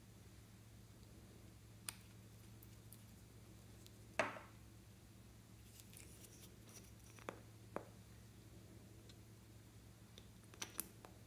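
Sparse small clicks and taps of glass nail polish bottles and their caps being handled, with one louder knock about four seconds in and a quick pair of clicks near the end, over a faint steady hum.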